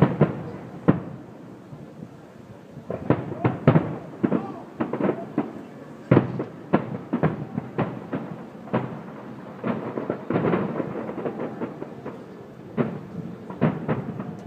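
Fireworks display: aerial shells bursting in quick clusters of sharp bangs, with short lulls between the clusters.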